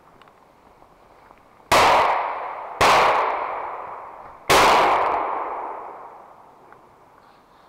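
Three shotgun shots, the second about a second after the first and the third about a second and a half later, each followed by a long echo dying away.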